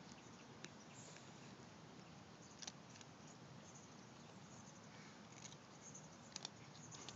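Near silence with a faint steady hiss and a few sparse, crisp clicks: cats crunching dry kibble.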